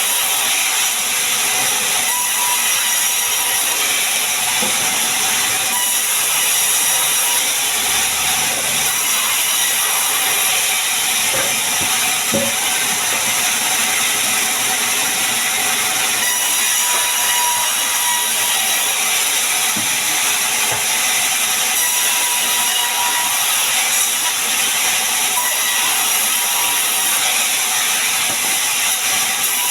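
Sawmill saw running steadily through sengon wood, a loud, even hiss-like noise with a faint thin whine coming and going.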